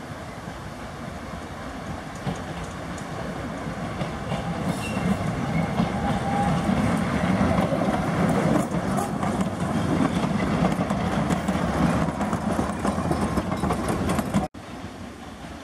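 Small narrow-gauge diesel locomotive hauling open passenger cars, approaching and passing close by: engine running and wheels running on the rails, growing louder to a peak as it passes. The sound cuts off suddenly near the end.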